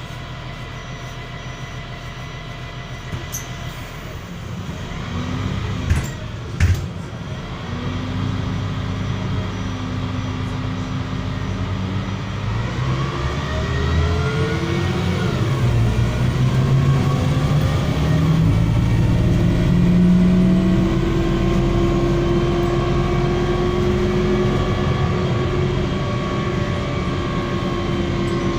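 Inside a MAZ-103 city bus: the engine runs at low speed, two sharp knocks sound about six seconds in, then the bus pulls away and the engine and drivetrain whine rise in pitch in steps as it gathers speed and changes gear.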